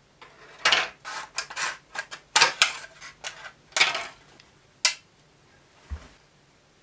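Scissors cutting through a thin plastic tray: a quick series of sharp crackling snips over about four seconds. A single low knock follows about a second later.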